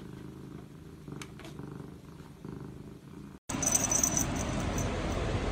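A cat purring softly in a steady, pulsing rumble. About three and a half seconds in, it is cut off by a louder rushing noise with faint clicks.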